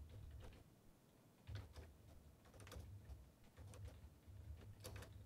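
Faint computer keyboard typing: scattered keystrokes in short clusters of two or three.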